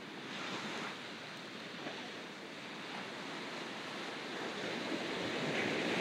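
Ocean surf washing onto a beach. A wave surges about half a second in, and the wash grows steadily louder toward the end.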